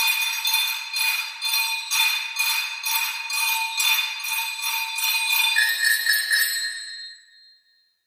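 Metallic percussion jingling and ringing in a steady pulse of about two strokes a second over several held ringing tones. A new lower ringing tone enters in the last couple of seconds before the sound dies away about seven seconds in.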